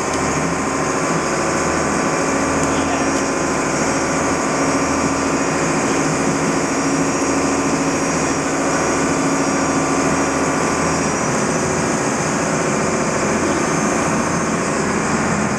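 Lobster boat's engine running steadily, a constant even drone.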